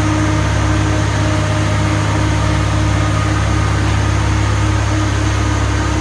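Komatsu PC300LC telescopic-arm excavator's diesel engine running steadily: a loud, constant low drone with a few faint steady tones above it.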